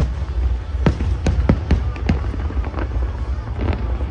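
Aerial fireworks bursting in a rapid series of sharp bangs, close to ten in four seconds, over a steady low rumble.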